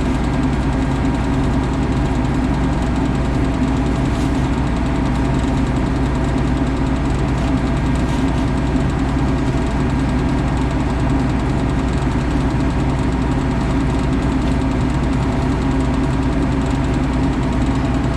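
Large farm machine's engine running steadily at a constant speed, an even low hum that does not rise or fall.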